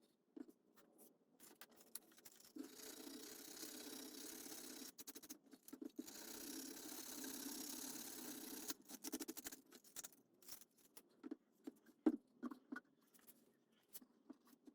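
Quiet handwork on small pieces of wood: scattered light clicks and taps, with two stretches of steady scraping of a couple of seconds each.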